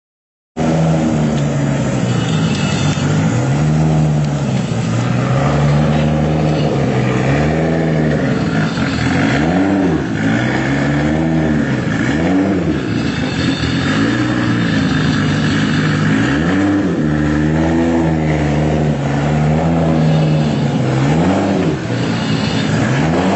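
Engine of a 700 hp tuned Toyota Supra running loud, idling at first and then blipped again and again from about eight seconds in, the pitch rising and falling with each rev.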